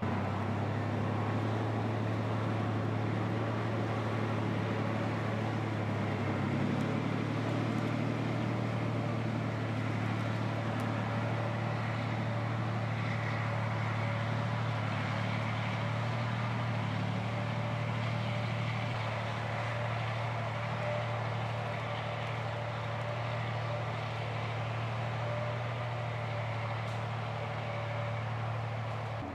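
A large vehicle's engine running steadily, a constant low drone with no change in pitch.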